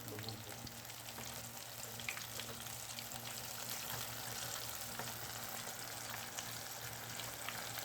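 Breaded chicken pieces deep-frying in hot oil: a steady sizzle dotted with small crackling pops.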